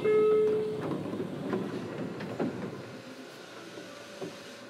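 Doors of a JR Kyushu 303 series electric train opening at a station stop: a short electronic tone lasting under a second, then a sudden rush of air and sliding-door movement that fades over about three seconds, with a few clicks, leaving the steady hum of the stopped train.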